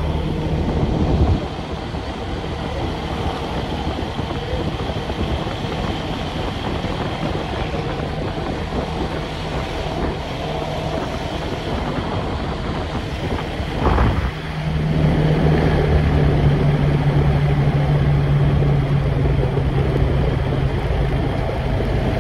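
An engine running steadily with a low hum. About fourteen seconds in it surges briefly with a rising pitch, then settles at a louder, steadier hum.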